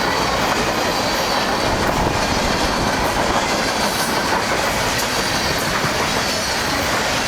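Train rolling past close by, a loud, steady noise of its cars' wheels running on the rails.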